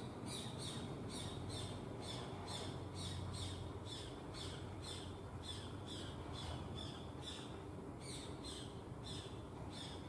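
Indian roller calling from its perch: a fast series of short, harsh notes, about two or three a second, with a brief pause about three-quarters of the way through.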